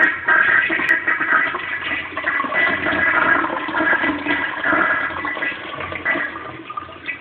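Kohler Rockwell toilet flushing, a slow flush: water rushing through the bowl, steady at first, then dying away over the last couple of seconds.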